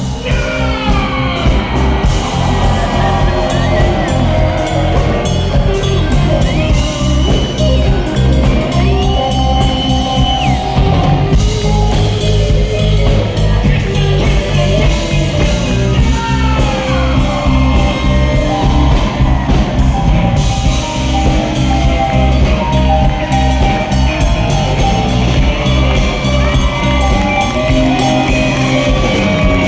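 Live rock band playing an instrumental passage: a drum kit keeping a steady beat under electric guitars, with lead lines that bend and glide in pitch.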